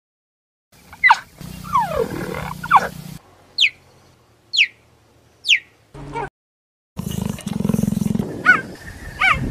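Cheetah calling: a string of high chirps that fall sharply in pitch, three of them about a second apart. Near the end comes a low rough rumble with more chirps over it.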